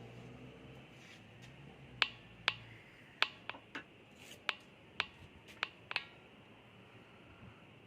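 A series of about ten sharp clicks, irregularly spaced, over roughly four seconds. Under the first clicks a low steady hum stops about two and a half seconds in.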